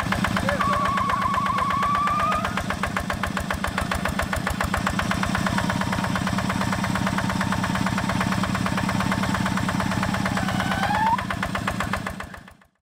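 Two-wheel hand tractor's single-cylinder diesel engine running steadily with a fast, even beat while the tractor is stuck in paddy mud. A high wavering tone rises over it from about half a second in and again briefly near the end.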